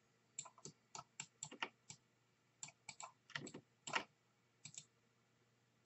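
Faint, irregular clicking of a computer keyboard and mouse as the software is worked, about fifteen short clicks spread unevenly, with a small cluster about three and a half seconds in.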